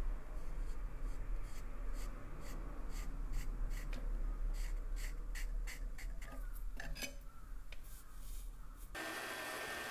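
Felt-tip marker drawing along a steel ruler on a rusty steel pruning-shear blade: a quick series of short scratchy squeaks. Near the end it cuts suddenly to the steady running noise of a band saw.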